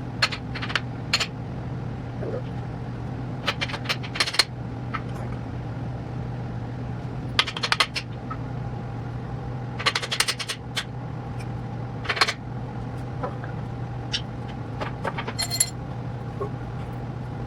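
Metal tools and engine parts clinking and tapping during a big-block engine teardown, in scattered clusters of sharp clicks over a steady low hum.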